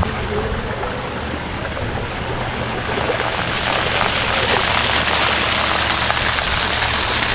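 Waterfall water rushing and splashing, a steady dense rush that grows louder about three seconds in.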